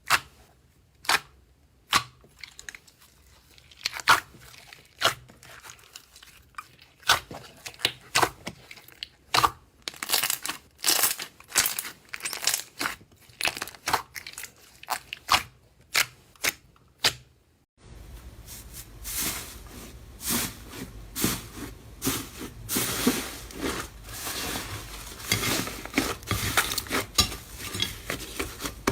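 Slime being squeezed and pressed by hand, giving sharp, separate clicking pops of trapped air. About two-thirds of the way in, this gives way to a denser, continuous crackling and crunching.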